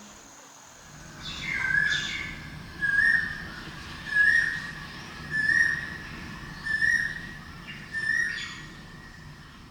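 A bird's whistled call, a short clear note repeated about six times, roughly once a second, each note sliding up at its start.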